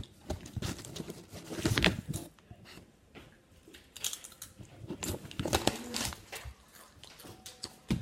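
Potato chips being bitten and chewed: irregular crisp crunches coming in bunches, the loudest about two seconds in.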